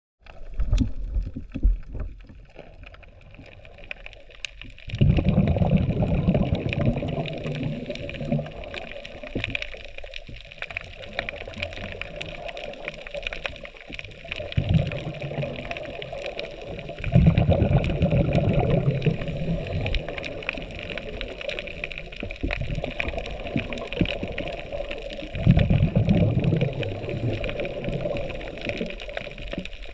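Water gurgling and bubbling picked up by an underwater camera, with a steady background and four louder low bubbling bursts of a few seconds each.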